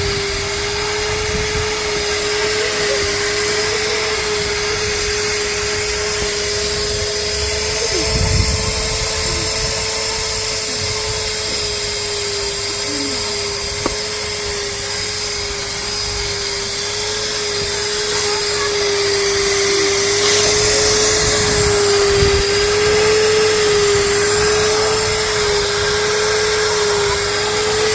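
Vacuum cleaner running steadily with a constant whine that wavers slightly in pitch, hoovering a car. It grows somewhat louder about two-thirds of the way through.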